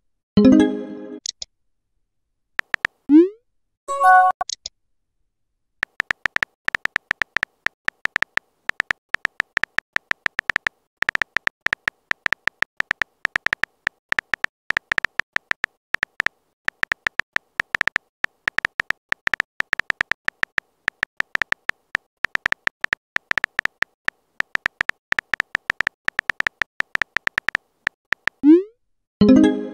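Smartphone keyboard tap clicks, a rapid, irregular run as a long message is typed. Near the start, and again near the end, short rising pops and chime-like message notification tones sound as chat bubbles appear.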